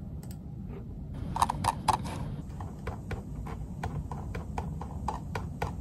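Typing on a laptop keyboard: a few harder key presses about a second and a half in, then steady key clicks at about four or five a second, over a low steady rumble.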